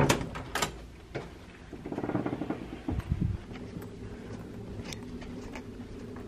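Hotel room door's lever handle and latch clicking, then a low thud about three seconds in as the door shuts, followed by a steady low hum along the hotel corridor with a few faint soft steps; the hallway's hum sounds really creepy.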